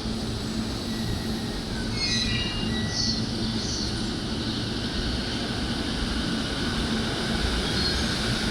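JR E233-series electric commuter train moving along the platform, a steady rumble of wheels on rail with a low hum. A few short, high wheel or brake squeals sound about two to four seconds in.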